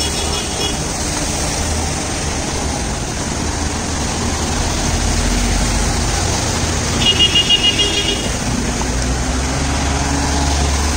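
Road traffic driving through a flooded street: engines running and water splashing and hissing under the tyres. A vehicle horn sounds in a quick string of short toots about seven seconds in.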